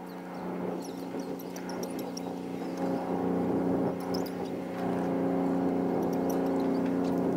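A boat engine drones steadily across the water, growing louder over the first three seconds and then holding level.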